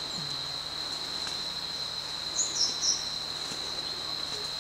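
Rainforest insects droning steadily on one high tone, with a few quick, higher bird chirps about halfway through.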